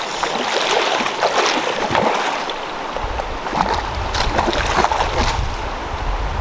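River water rushing and splashing, with irregular splashes. From about three seconds in, wind buffets the microphone with a low rumble.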